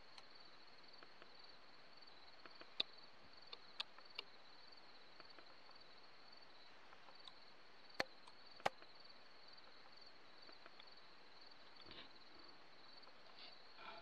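Faint outdoor night ambience: a steady, high, pulsing cricket trill, broken by a few sharp clicks, the two loudest close together about eight seconds in.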